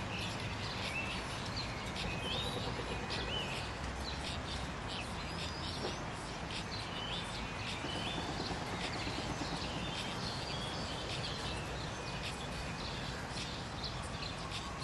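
Small birds chirping and singing in short scattered calls over a steady outdoor background hum.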